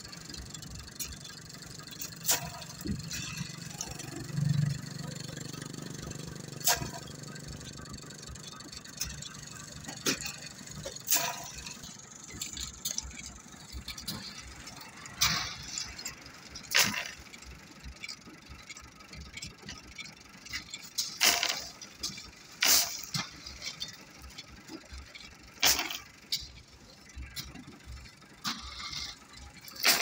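Crushed stone tipped and shovelled from a tractor trolley onto the road bed, each load landing as a short rattling crash, about ten of them at irregular intervals. A low hum runs for several seconds in the first third.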